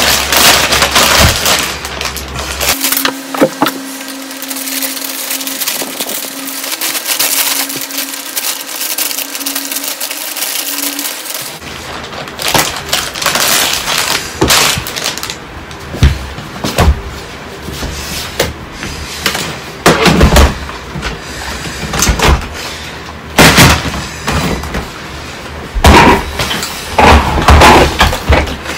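Clear plastic IKEA vacuum storage bag crinkling and crackling as it is handled and its zip seal is pressed shut with the sliding clip, with a few sharper knocks in the second half.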